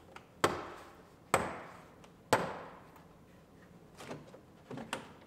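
Plastic retaining clips of a Honda Civic front door trim panel popping out of the door one after another as the panel is pried off: three sharp snaps about a second apart, then a few fainter clicks near the end as the panel comes loose.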